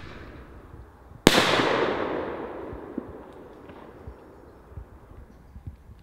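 A 45 mm aerial ball shell bursting overhead, about a second in, with a single sharp bang. The bang then fades away over about two seconds.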